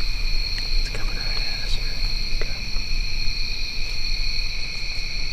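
Evening insect chorus in hardwood woods: a steady, continuous high-pitched drone at two pitches, with a low rumble underneath and a few faint clicks.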